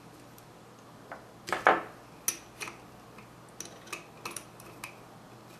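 Small metal parts clicking and tapping together as a lock tab and screw are fitted onto a Weber 42 DCNF carburetor's throttle linkage. A duller knock comes about a second and a half in, then a run of sharp, irregular clicks.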